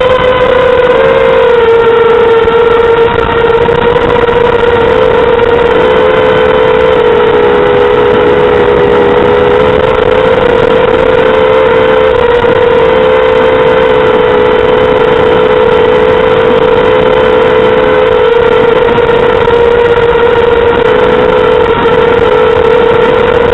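Mini quadcopter's brushless motors and propellers whining at a steady pitch, wavering slightly up and down as the throttle changes, over a hiss of propeller wash.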